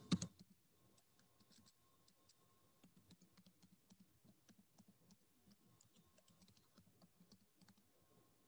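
Faint typing on a computer keyboard: a long, irregular run of quiet key clicks, opening with a couple of louder clicks.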